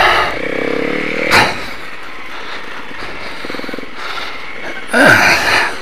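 Motorcycle engine running as the bike rides over rough wet gravel, its revs rising and falling. Short loud bursts of rushing noise come at the start, about a second and a half in, and near the end.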